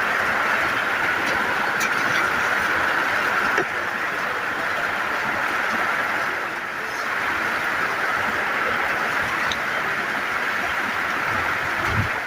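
Steady rushing of flowing water from a stream, with a few faint clicks over it.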